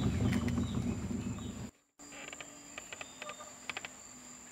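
Insects keeping up a steady high-pitched whine. A low rumble underneath cuts off abruptly about a second and a half in, and after a brief dropout a few light clicks follow.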